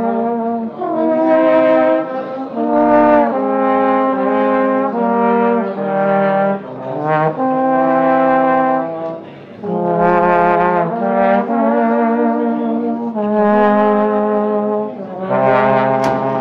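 Trombones in a brass band playing sustained notes in harmony, the chords changing every second or so, with a short break about nine and a half seconds in.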